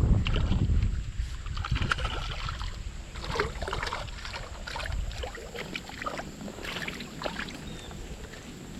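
Water splashing and sloshing with scattered short clicks and knocks of handling, and a low rumble on the microphone in the first second.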